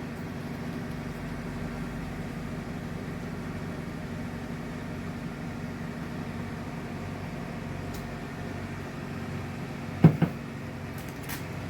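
A steady, low machine hum runs throughout. A single sharp knock comes about ten seconds in and is the loudest moment.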